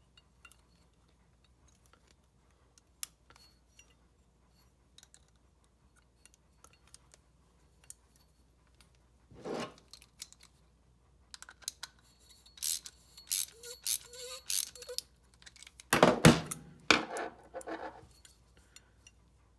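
Small metal clicks and clinks of a wrench working the nut on a foot valve's plunger rod as it is tightened back down. The clicks are sparse and faint at first and get busier later on, with a louder clatter and knock near the end as the valve and tools are handled on the bench.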